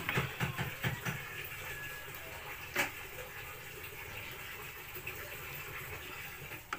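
Water sounds from a pot of salmon head and vegetables being cooked, a steady wet hiss. Several sharp knocks of a utensil against the pot come in the first second, and one more about three seconds in.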